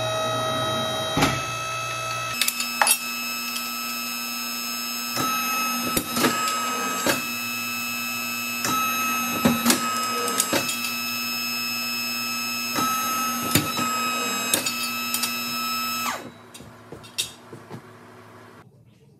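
50-ton hydraulic ironworker running with a steady hum from its motor and pump, with sharp clacks as it punches holes in angle iron. The hum cuts off suddenly near the end.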